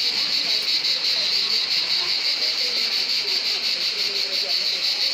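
Cicadas buzzing in a loud, steady, high-pitched chorus with a fast, even pulse.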